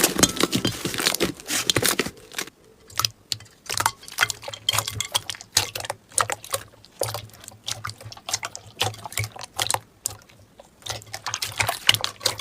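Slime being squished and worked by hand: a dense, irregular run of wet clicks, pops and squelches.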